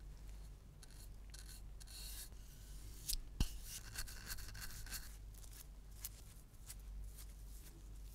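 Faint scratchy strokes of a bristle brush spreading neoprene contact cement over wood and leather, with light handling ticks and one sharp tick about three and a half seconds in.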